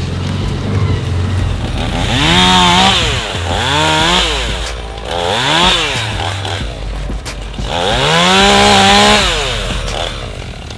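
Gas chainsaw revved up four times, its pitch rising and falling with each rev; the last rev is held longest, for about a second, before dropping back to idle.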